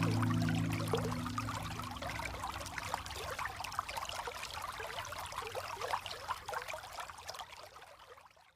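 Running water trickling and splashing in many small, quick spatters, fading out to silence near the end. A held musical chord fades away in the first couple of seconds.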